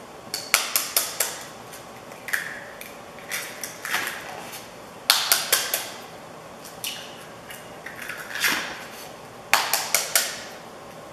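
Eggs being tapped to crack their shells for cake batter: sharp little taps, in three quick runs of several knocks each (near the start, about halfway, and near the end), with single taps in between.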